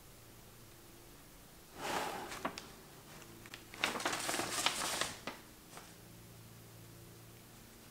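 A printed paper sheet rustling as it is handled and put down: a short rustle about two seconds in and a longer one a couple of seconds later, with a few light taps.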